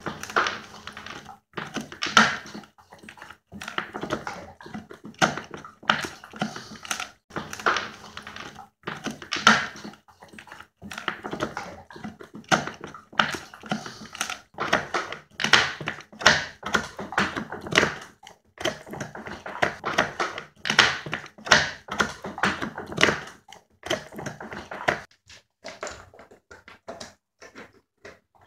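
Pit bull chewing a bully stick, a dried bull pizzle chew: dense, uneven crunching and gnawing in quick clusters of strokes, thinning out and quieter near the end.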